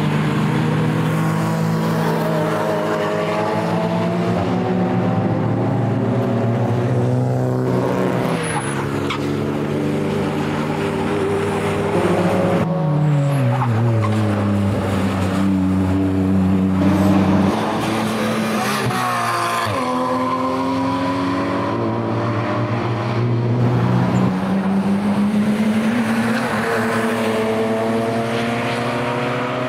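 Racing saloon cars running hard past the track edge, their engine notes climbing through the gears. More than one car is heard at once. About 12 to 14 seconds in, one engine falls steeply in pitch as it passes, and near the end another engine rises again.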